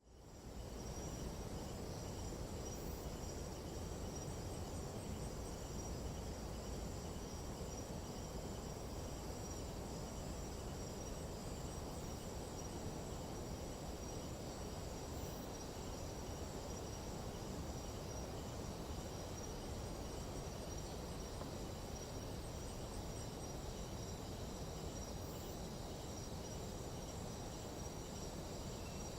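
Nighttime tropical jungle insect chorus: several high, unbroken trills layered together, with short runs of rapid pulsing chirps now and then, over a low steady rushing noise. It fades in at the start.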